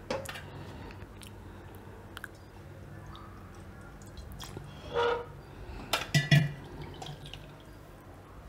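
Milk sauce pouring and dripping through a wire-mesh strainer into a steel bowl, fairly quiet, with a few short clanks of steel vessels ringing about five and six seconds in.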